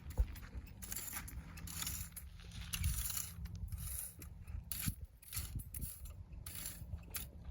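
Irregular scraping and rustling strokes of dry desert weeds being cleared by hand tool, each stroke a short burst of hiss.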